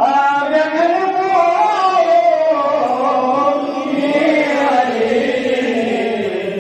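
A man chanting a Balti qasida, a devotional poem, in one long wavering melodic line that rises early and then drifts lower in pitch toward the end.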